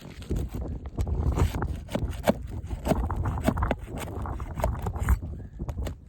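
Irregular scraping and knocking as a damaged three-tab roof shingle is worked loose, with a low rumble on the microphone under it.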